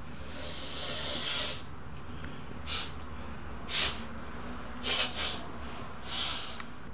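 A man snorting a line off a table through his nose: one long inhaled snort lasting over a second, then about five short, sharp sniffs.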